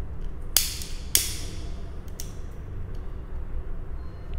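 A hand-held disposable lighter being struck: three sharp clicks of the spark wheel within the first two and a half seconds, the last one weaker, as it is lit to burn the coating off earphone wire ends. A steady low hum lies underneath.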